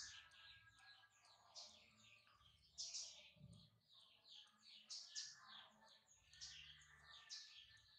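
Small birds chirping faintly and continuously, many quick high chirps a second.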